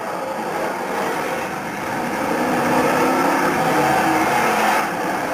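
Several BriSCA F1 stock cars' V8 engines running together on a shale oval, at different pitches, growing louder from about two seconds in as the cars come closer.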